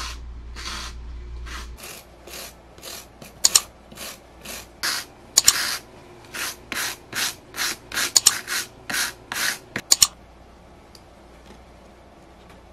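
A stiff hand brush scrubbed back and forth over a rough maple burl in quick, scratchy strokes, about two a second, cleaning loose dirt and debris off the wood. The scrubbing stops about ten seconds in.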